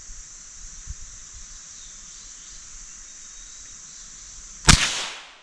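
A .22 rifle fires a single shot near the end: a sharp crack with a short fading tail, over a steady high-pitched hiss.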